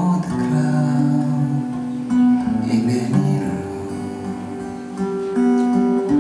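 Acoustic guitar music: a melody of held notes that changes every half-second to a second.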